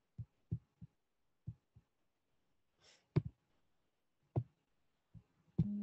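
Scattered, irregular computer keyboard and mouse clicks, about eight soft taps spread over several seconds, with a brief hummed voice right at the end.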